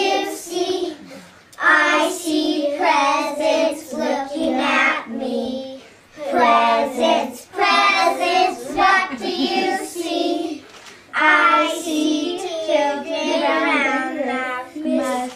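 A small group of young children singing together, in phrases broken by short pauses.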